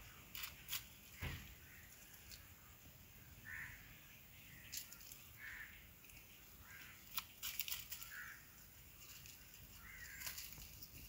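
Faint short bird calls repeating every second or two, over a few sharp clicks and rustles as a goat kid pulls at plants and leaves.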